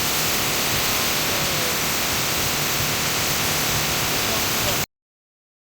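Steady rushing noise that cuts off suddenly near the end, followed by dead silence.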